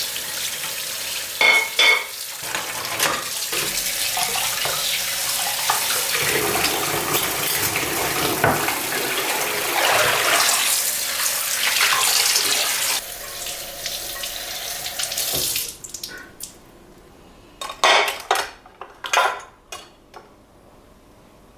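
Tap water running into a sink while dishes are washed, with a pair of ringing clinks of crockery about two seconds in. The flow eases and stops after about fifteen seconds, followed by a few clatters and knocks of dishes being handled.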